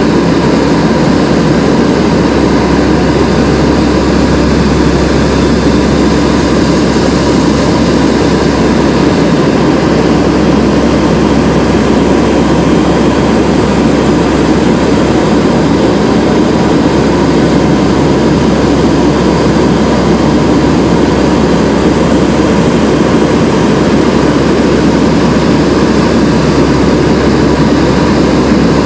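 Allison T56 turboprop engines and propellers of a Lockheed WP-3D Orion running steadily in flight, heard from inside the cabin: an even, loud drone with a low propeller hum beneath it and a faint steady whine above.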